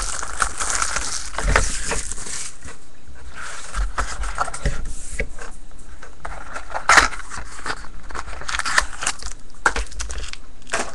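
Rustling, scraping and clicks of a trading card box and its packaging being handled and opened, with a sharper click about seven seconds in.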